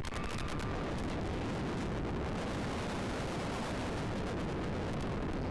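Wind rushing over a GoPro microphone as a rider is carried at speed on a B&M dive coaster: a loud, steady, dense rush of wind noise that covers everything else.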